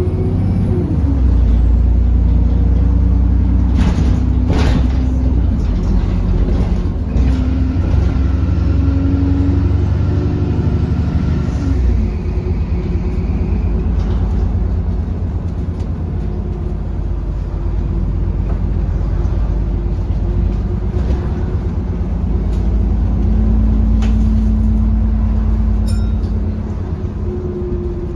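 London double-decker bus heard from inside the cabin while under way: a deep steady engine and drivetrain rumble that eases about twelve seconds in. Two sharp knocks come about four seconds in, and faint thin squealing tones are heard between about eight and fourteen seconds.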